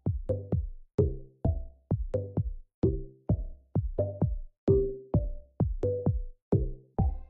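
Electronic background music with a steady drum-machine beat, about two beats a second, each hit ringing briefly with a short pitched tone.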